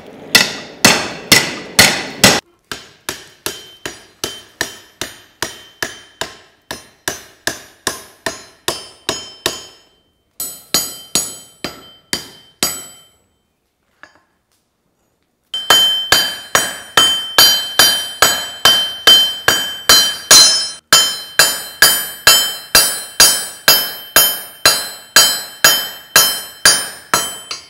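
Hand hammer striking hot steel on an anvil while forging a hook: steady blows about three a second, each with a metallic ring. The hammering breaks off for a couple of seconds midway, then carries on with a clearer ring.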